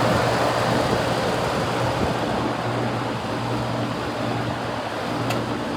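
Durastar heat pump outdoor units running: a steady low compressor hum under the even whoosh of the condenser fans, with one faint click about five seconds in.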